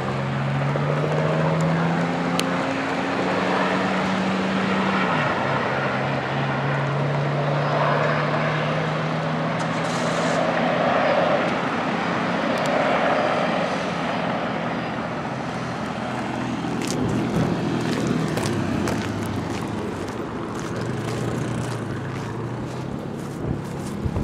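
Firefighting aircraft passing overhead: a steady engine drone that drops in pitch about five seconds in as it goes by, then continues lower and weaker.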